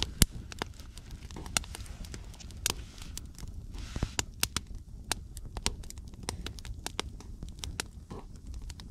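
Campfire of split wood burning, crackling with frequent, irregular sharp pops and snaps over a low steady rush of flame.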